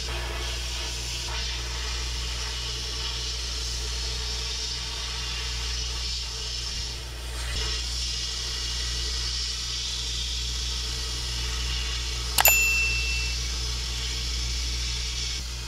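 Sandblast cabinet gun blasting abrasive onto a rusty, painted steel plate, a steady hiss over a low hum. About twelve seconds in, one sharp metallic ding rings briefly, as metal strikes metal.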